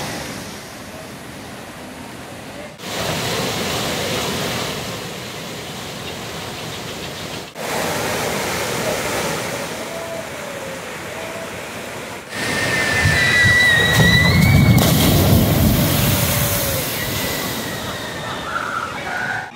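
Water rushing down the wide chute of a shoot-the-chute ride, a steady wash of noise broken into several stretches. Over the last few seconds a boat hits the splashdown lagoon with a loud, heavy splash, and a high wavering tone rides over it.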